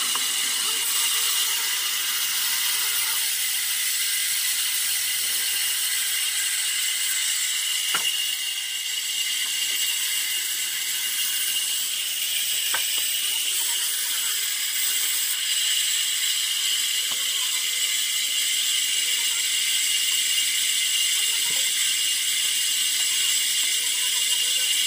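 Vertical band saw running and ripping wood lengthwise: a steady high hiss of blade through timber, with a few faint clicks scattered through.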